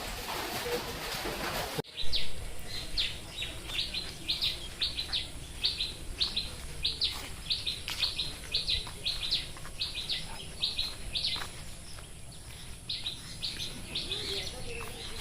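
A songbird repeating short, high chirps, about two a second, with a faint steady high tone behind it. It is preceded by an even hiss that stops abruptly near the start.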